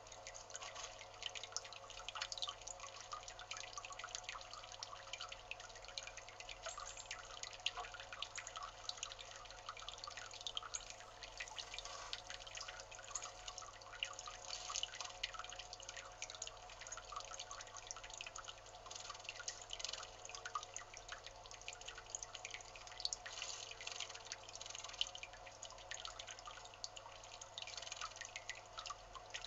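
Water dripping steadily into a stone bird bath, a continuous faint patter of small drops.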